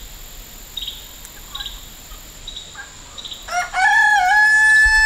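A rooster crows once, starting about three and a half seconds in: one long call that rises, then holds steady. Before it, insects chirp faintly.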